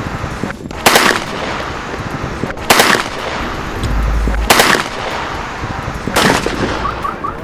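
Gunshots fired at the car in a staged attack: four sharp, loud shots about two seconds apart, with steady noise between them.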